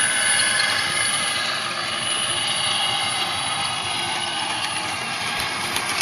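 Small electric RC warplane's motor and propeller running steadily, a high whine over a steady hiss, as the plane rolls along the runway on its takeoff run.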